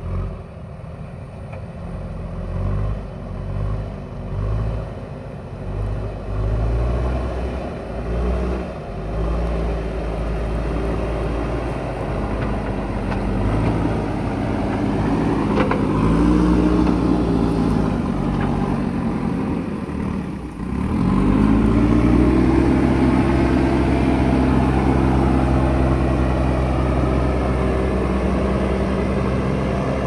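JCB 3DX backhoe loader's diesel engine working under load as the front bucket pushes mud. The engine note swells and eases in pulses for the first several seconds, then runs steadily. About two-thirds of the way through it dips briefly, then revs back up and holds at a higher, louder pitch.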